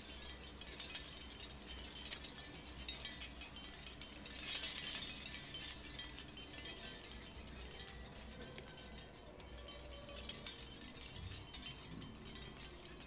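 Light clicking and clinking of a finger bike's tiny chain and small parts, and of metal tweezers, as the rear wheel and chain are fitted by hand, with a short louder rustling scrape about five seconds in.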